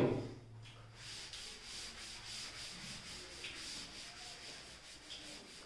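Cloth duster wiping chalk off a chalkboard: a faint, scratchy rubbing of repeated back-and-forth strokes.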